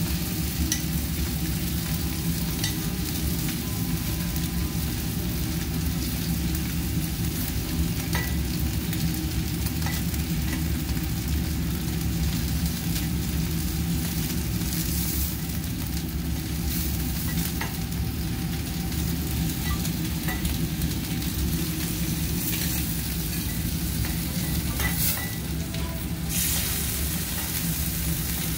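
Kobe beef steak sizzling on a steel teppanyaki griddle, a steady hiss over a low hum, with scattered light clicks of a knife and spatula against the steel as the meat is cut. The hiss swells briefly twice, about halfway through and near the end.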